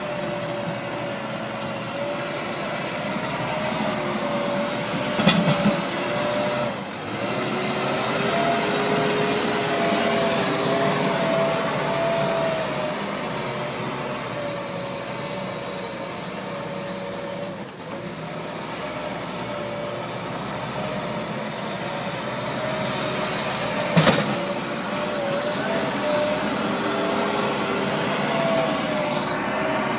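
Hidromek 102S backhoe loader's diesel engine running steadily under load, with a whine that drifts up and down a little in pitch. Two sharp knocks, about five seconds in and again near 24 seconds.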